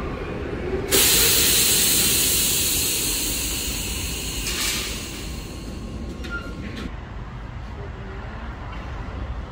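MBTA Blue Line subway train letting out a sudden loud hiss of compressed air about a second in, which fades away over several seconds.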